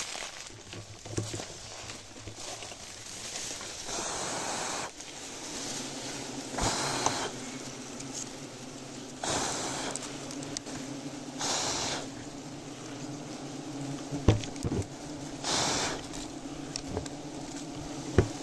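Giant honeybees at a rafter hive buzzing as a steady low hum that builds up about four seconds in and holds. Several short hissing rushes and a few sharp clicks break in over it.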